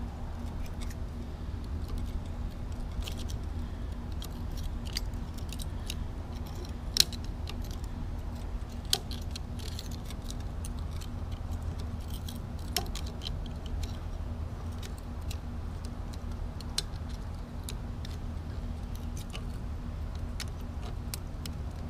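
Small metallic clicks and scrapes of a utility knife blade prying at a snap ring on a Hustler Raptor SDX mower deck spindle shaft, with a few sharper clicks scattered through. A steady low hum sits underneath.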